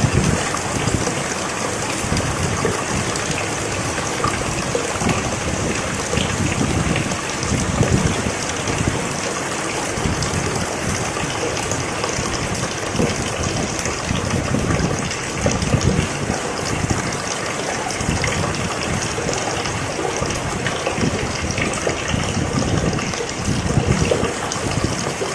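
Heavy rain pouring down steadily, with a deeper rushing that swells and eases every few seconds.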